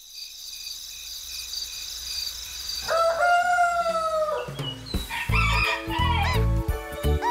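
A soft, high shimmer swells, then a rooster crows once, a single held call that drops at its end. About five seconds in, bright children's music with a steady beat begins, with short whistling glides over it.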